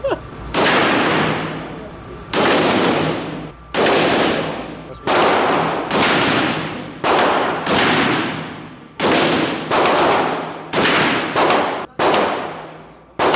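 Gunshots at a shooting range: about a dozen single shots at roughly one a second, each with a long echoing decay.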